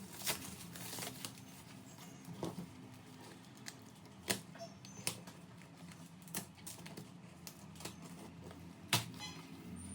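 Cardboard packaging being handled during an unboxing: scattered light clicks and knocks, the sharpest about four seconds in and again near the end.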